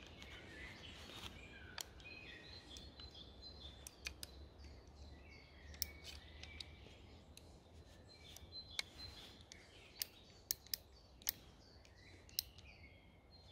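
Faint, scattered sharp metallic clicks, most of them in the second half, as the steel cylinder of a stainless Uberti Remington 1858 New Army .44 black-powder revolver is worked back into its frame.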